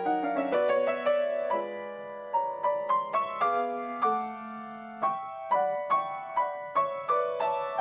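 Piano music: a gentle line of single struck notes that ring and fade, easing off briefly about halfway through before the notes pick up again.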